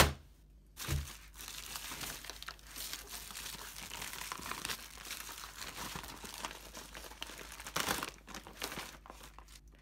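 Plastic bubble mailer and the notebook's plastic packaging crinkling and rustling as they are handled and the package is pulled out, after a knock about a second in. The rustling swells to its loudest near the end.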